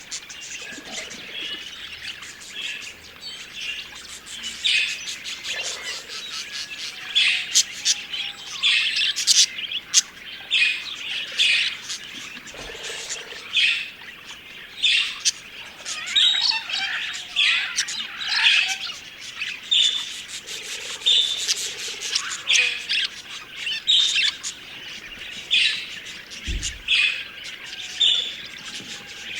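Flock of budgerigars chirping and warbling, with many short high calls overlapping without a break. A brief low thump comes near the end.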